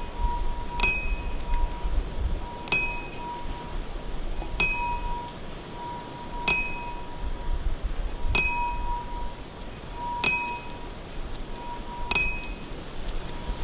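Soundtrack of a bell-like chime struck at an even pace, about every two seconds, seven times. Each strike gives a short high ring over a held lower tone, with a steady wind-like hiss beneath. Quick faint clicks join near the end.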